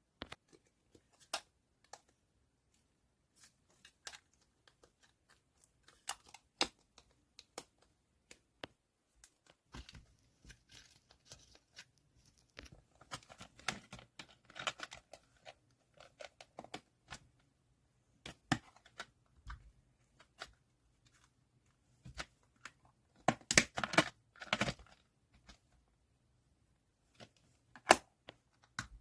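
Photocard packing: plastic sleeves and tape being handled, with crinkling, tearing and small sharp clicks and taps. The crinkling and tearing come in two flurries, one around the middle and a louder one about two-thirds through.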